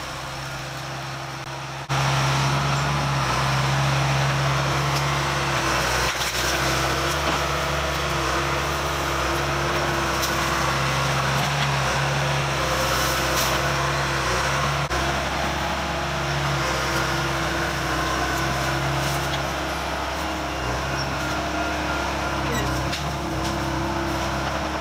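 Diesel engine of a tracked crawler loader running steadily under load as it pushes over and clears trees. It gets louder about two seconds in.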